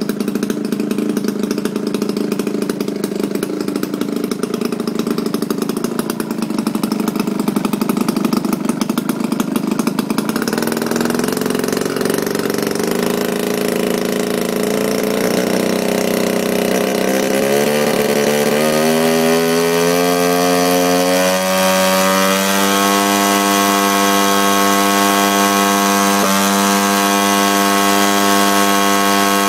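Engine of a radio-controlled P-40 Warhawk scale model plane running with its propeller turning. It idles steadily for about ten seconds, then rises in pitch as it is throttled up, and holds at a steady high speed for the last quarter.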